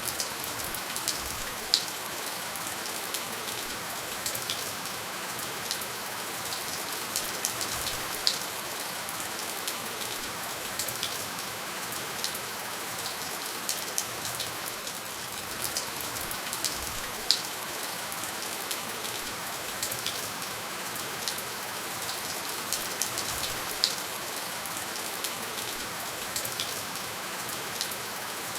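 Steady rain falling, with no thunder: an even hiss of rainfall with a patter of individual drops striking a surface, and a handful of louder single drips standing out now and then.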